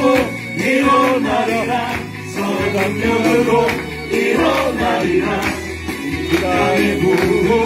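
A man singing a slow Korean worship song into a handheld microphone over instrumental accompaniment with a bass line and a steady beat.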